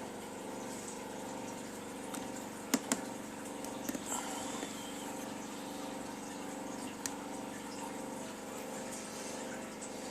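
Steady electronic drone of several held tones over a light hiss from a homemade 13-frequency digital Spiricom ghost box running in a continuous feedback loop. A few sharp clicks come about three to four seconds in, and one more near seven seconds.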